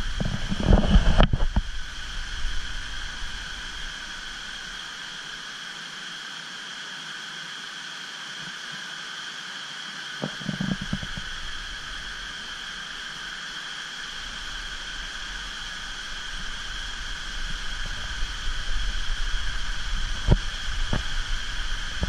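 Steady outdoor background of hiss with a constant high-pitched hum, broken by a few low thumps near the start, about ten seconds in and near the end, typical of a handheld camera being jostled while walking.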